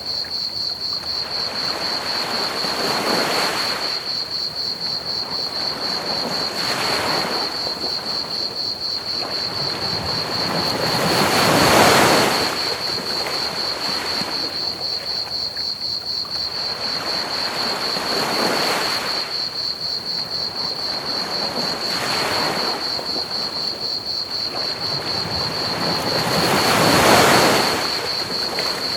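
Ocean waves washing onto a beach, surging every four to five seconds with the biggest breakers about twelve seconds in and near the end, over a constant hiss of pink noise. A steady, high, fast-pulsing cricket trill runs under it all.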